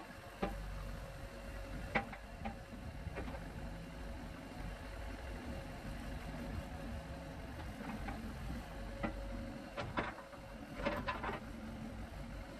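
Ford backhoe's engine running steadily, with a steady hum, while the bucket is lowered toward a tire to break its bead. A few sharp knocks are heard over it.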